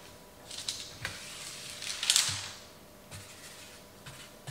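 Marker scratching across parchment paper in three short strokes, the longest about half a second, followed by a few soft knocks against the sheet pan.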